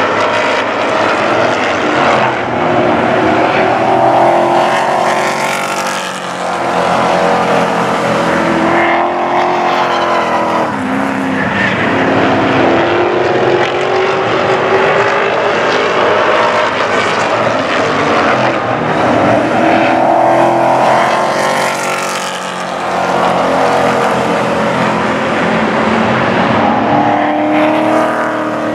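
Pro Truck race trucks lapping an oval track at race speed. Several engines run together, their pitch rising and falling over and over, with the sound easing briefly twice.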